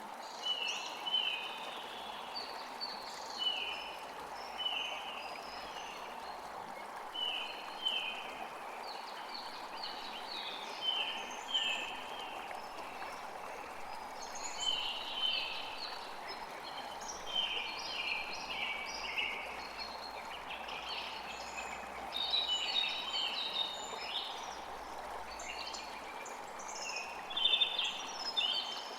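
Several birds chirping and calling: short, quick high notes repeated every second or so, thickening into overlapping calls in the second half, over a steady rush of wind.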